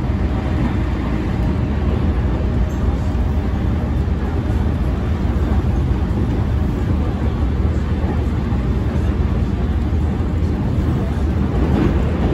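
Steady running noise inside the cabin of a JR East E231 series 1000-number electric commuter train travelling at speed: a continuous low rumble of the wheels on the track.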